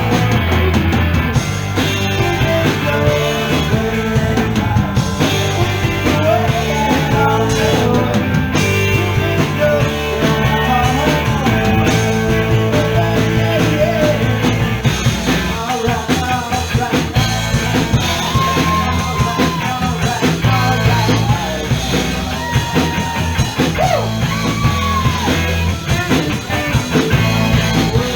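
Live rock trio playing a song, with drum kit and bass under the melody, loud and continuous.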